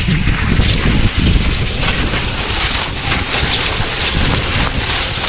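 Wind buffeting the microphone on a fast downhill run on cross-country skis, with the skis hissing over icy, packed snow: a steady loud rush with an uneven low rumble.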